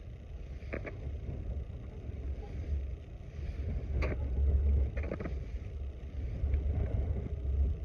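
Wind buffeting the microphone as a low, uneven rumble, with a few scattered knocks.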